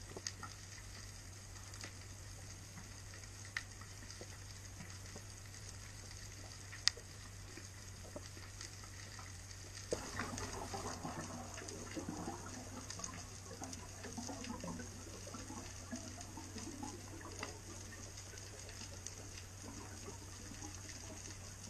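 Underwater ambience picked up by a diving camera in its housing: a steady low hum and hiss with a few sharp clicks. From about halfway through, a louder bubbling, gurgling water sound joins in.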